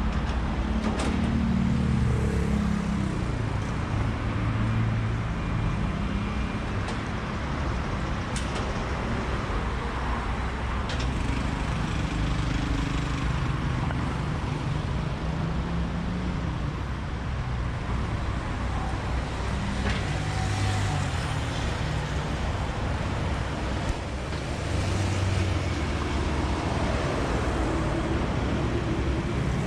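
City road traffic: car, bus and truck engines running, with a steady low rumble and tyre noise throughout.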